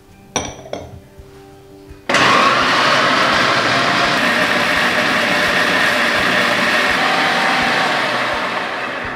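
A couple of light clinks, then an electric kitchen blender switches on about two seconds in and runs steadily, grinding the sambal ingredients. It eases off slightly near the end.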